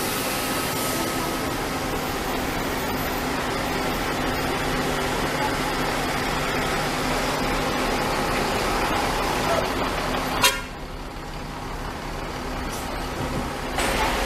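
Steady vehicle noise of buses and traffic running, with faint steady tones in it. About ten seconds in there is a sharp click, and the noise drops abruptly to a quieter level, then jumps back up near the end.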